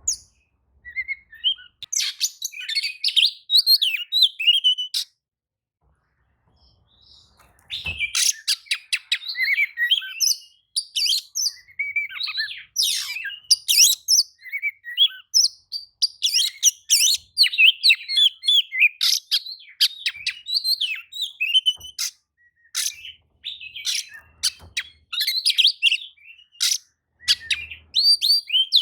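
Oriental magpie-robin (kacer) singing a fast, varied song of whistled phrases and trills mixed with many sharp clicking notes, broken by a pause of about two seconds after the first few seconds.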